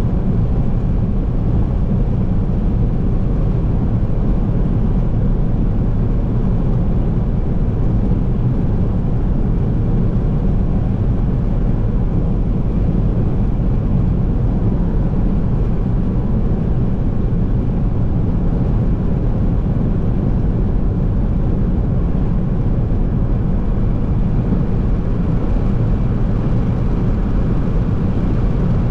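Steady low road noise inside a car cruising at highway speed: tyre and engine drone at a constant level, without change.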